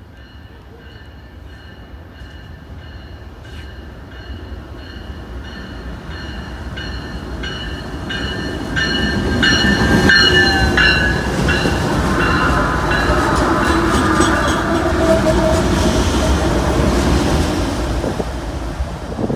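BNSF freight train led by GE diesel locomotives, including an ES44DC, approaching and passing at speed. A bell rings in steady strokes as it nears. The sound swells to its loudest as the locomotives go by about ten seconds in, then gives way to the rumble of engines and wheels on the rails as the train runs past.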